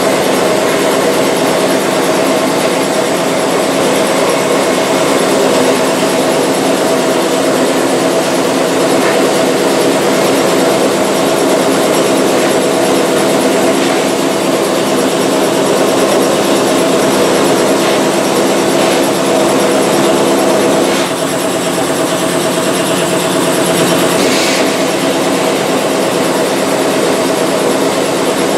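Vapor blasting cabinet running: a steady, loud hiss of water-and-abrasive slurry blasted from the nozzle at about 60 PSI, with a steady machine hum underneath. The level dips briefly about two-thirds of the way through.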